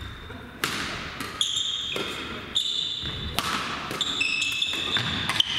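Badminton doubles rally: rackets cracking against the shuttlecock about once a second, each hit echoing in the hall, with players' shoes squeaking sharply on the court floor between the hits.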